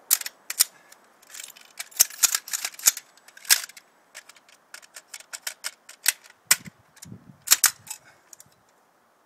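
AR-15 rifle being worked by hand to clear a double-feed malfunction: an irregular run of sharp metallic clicks and clacks from the action and magazine, with a few duller knocks about seven seconds in.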